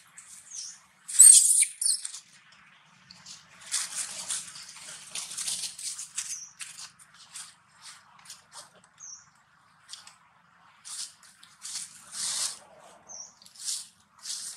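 A macaque eating soft, ripe fruit up close: irregular wet chewing, smacking and squishing sounds, loudest just over a second in, with a few short high squeaks in between.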